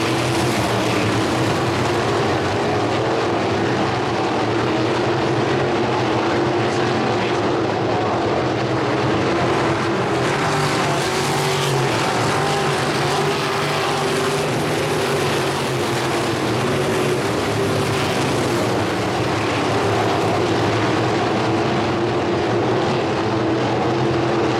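A field of crate sprint cars racing, their V8 engines running together in a steady, continuous din whose pitch wavers up and down as the cars lift and get back on the throttle around the oval.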